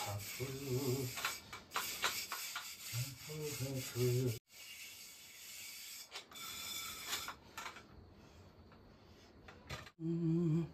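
A hand rubbing and smearing mud over the outside of an aluminium pot, a scratchy scraping on the metal that comes and goes. A man hums briefly three times over it, loudest a few seconds in and near the end.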